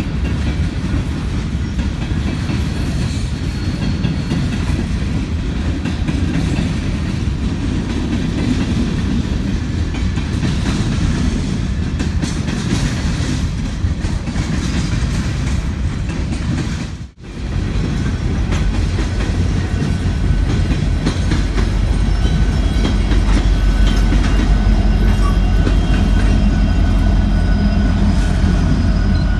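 A freight train of hopper cars rolling past, with a steady low rumble and the clickety-clack of wheels on the rails. The sound drops out sharply for a moment about halfway through. Near the end, the rumble grows heavier as mid-train BNSF SD70MAC diesel locomotives pass.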